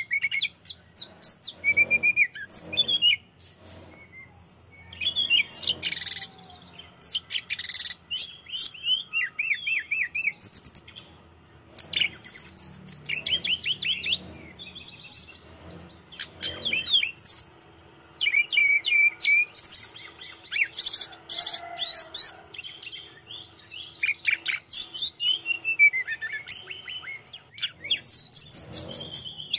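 Hill blue flycatcher in full song: bursts of rapid, high chirps, sweeping whistles and trills, coming in phrases broken by short pauses.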